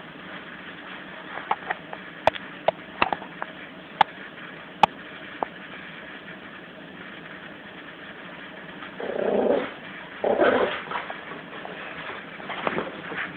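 Yorkshire Terrier puppy and Jack Russell playing tug of war over a toy: a scatter of sharp clicks in the first half, then two short play growls from the puppy about two-thirds of the way through.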